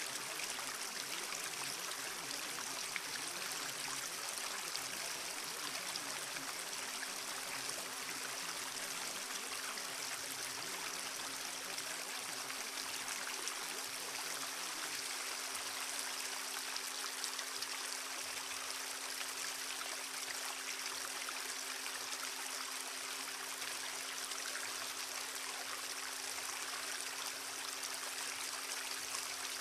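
Subliminal audio track: a steady, even rush like a flowing stream, with a low steady tone beneath it. A second, stronger low tone joins about seven seconds in.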